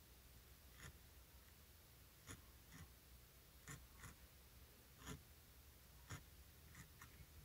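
Near silence broken by faint, soft ticks, about one a second and unevenly spaced, as a barbed felting needle is jabbed into the wool of a needle-felted doll's face.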